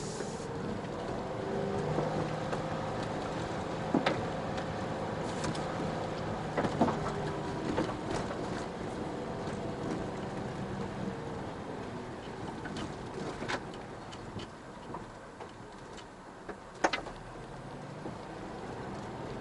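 Car driving slowly over a rough, rutted dirt track: steady engine hum under tyre and road noise, with sharp knocks from the body and suspension jolting over bumps, loudest about 4, 7 and 17 seconds in.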